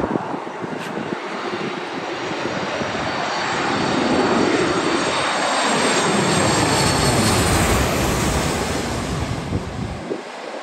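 Airliner passing low overhead: its engine noise swells to a peak in the middle and then fades, the whine falling in pitch as it goes by.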